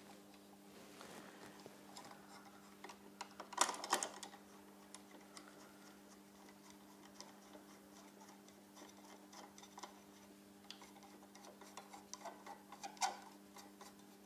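Faint ticking and small clicks of screws being turned by hand with a manual screwdriver while the monitor arm's VESA adapter is fastened. There is a cluster of louder knocks about four seconds in and another near the end, and a steady low hum runs underneath.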